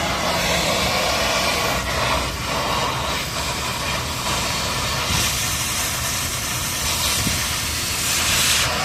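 Steady, loud hissing noise from workshop equipment, with a few brief sharper crackles near the start.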